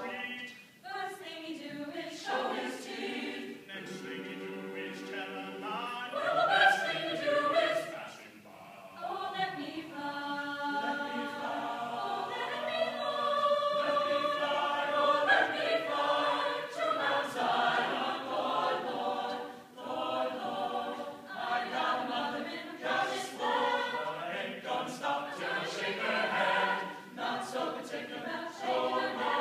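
Chamber choir singing in several overlapping parts, swelling and easing in loudness, with short breaks between phrases about a second, eight seconds and twenty seconds in.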